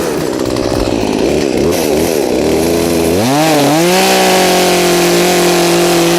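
Chainsaw engine running while making the back cut of a tree felling. Its pitch wavers at first, then rises about three seconds in and holds steady at a higher pitch.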